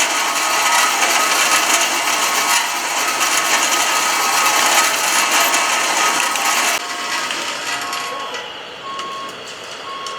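Radio-controlled construction models working: a steady whirring and grinding of electric motors and gears with a hiss that cuts off about seven seconds in. After that, a reversing beeper sounds about once a second.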